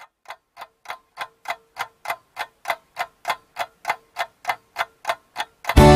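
Clock ticking in an even, fast rhythm of about three ticks a second, growing louder. Music starts abruptly just before the end.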